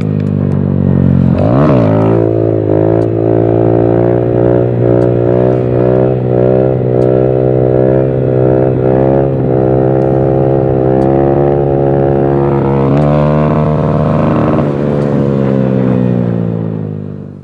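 Honda street motorcycle engine revved hard for a wheelie: a quick throttle blip about a second and a half in, then a high, slightly wavering note held under load while the front wheel is up, fading out near the end. Wind rumbles on the microphone underneath.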